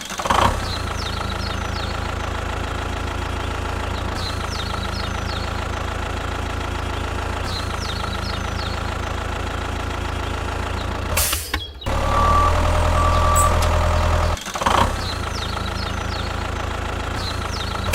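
A small engine idling steadily, cut off abruptly about eleven seconds in. A louder engine passage follows with two short high beeps, then the steady idle resumes.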